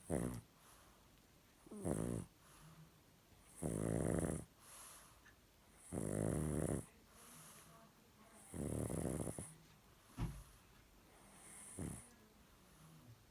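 A sleeping pug snoring: about seven noisy breaths come roughly every two seconds. The longer ones have a fluttering rattle and the shorter ones are brief snorts.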